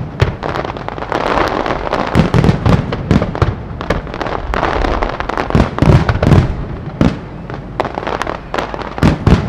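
A fireworks display going off: a rapid series of sharp bangs with crackling between them, heaviest about six seconds in and again near the end.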